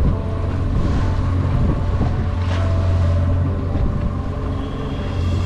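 Outboard motor running steadily at trolling speed, a low even drone, with wind buffeting the microphone.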